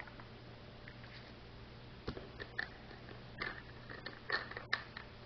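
Small plastic clicks and taps as a plastic baby-oil bottle is handled and its cap worked closed, about five short sharp ones in the last three seconds.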